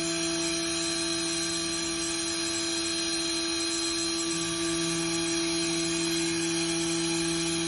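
Thermwood C67 five-axis CNC router running: a steady whine over a lower hum, the lower note growing slightly stronger about four seconds in.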